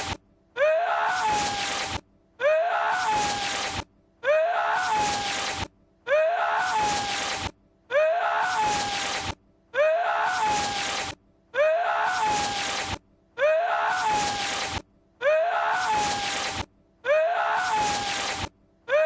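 A man's sneeze-like vocal outburst, one identical film clip looped about every two seconds with a short gap of silence between each repeat. Each burst rises sharply in pitch, then holds over a breathy rush.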